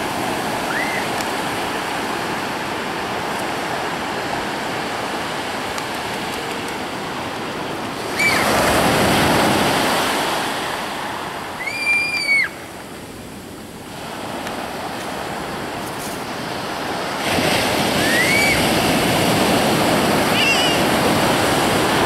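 Ocean surf breaking and washing up the shore, a continuous rush of foaming water that swells louder as waves come in about eight seconds in and again near the end. Over it, a few brief high-pitched squeals from children.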